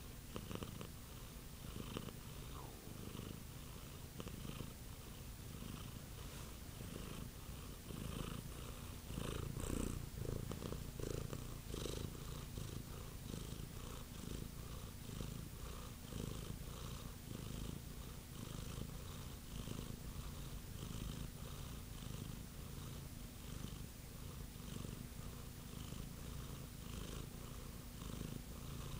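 Domestic tabby-and-white cat purring close to the microphone: a continuous low rumble with a regular pulse.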